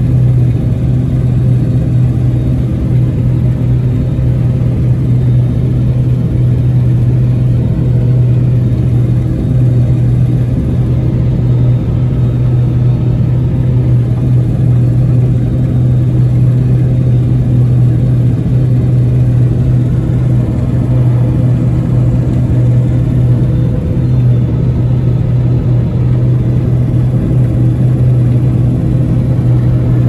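New Holland TX68 Plus combine harvester, with its 310 hp Iveco engine, running steadily under working load while unloading grain through its auger, heard from inside the cab: a loud, even, low hum.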